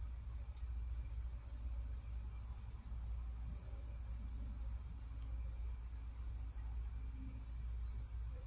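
Crickets chirring in a steady, high, unbroken drone, over a low steady hum.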